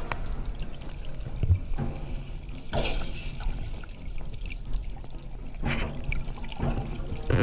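Muffled water sloshing and bubbling picked up underwater, with a few louder rushes of water about three seconds in and again near six and seven seconds.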